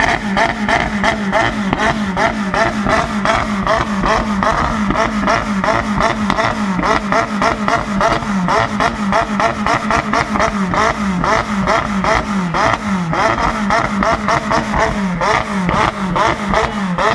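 A car engine held at high revs and bouncing off its rev limiter, stuttering in an even beat about three times a second, with sharp crackles on each cut.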